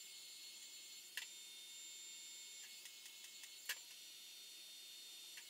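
Near silence with a faint steady hiss and a few light clicks and taps from hands working vinyl film on a grille and putting a heat gun down on an aluminium work platform; the sharpest click comes about three and a half seconds in.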